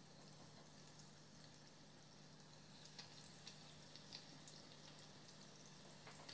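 Tempura-battered morel pieces frying in a small saucepan of oil at medium heat: a faint, steady sizzle with scattered small pops.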